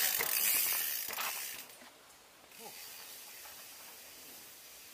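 A mountain bike passing close by on a dirt trail: the tyres make a loud hiss over the dirt for about a second and a half, which then falls away.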